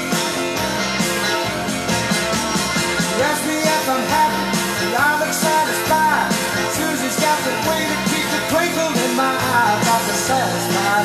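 Blues-rock recording playing from a vinyl LP on a turntable: an electric guitar lead with string bends over bass and drums.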